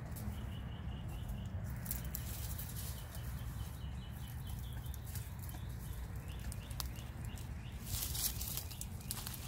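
White Leghorn hens drinking from a water tub: scattered light taps and small splashes as their beaks dip into the water, with a cluster of them about eight seconds in. A steady low rumble runs underneath.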